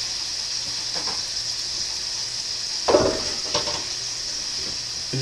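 Chicken frying in oil in a wok, a steady sizzle, with a short knock about three seconds in.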